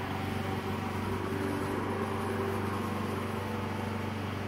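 Petrol lawn mower engine running at a steady speed.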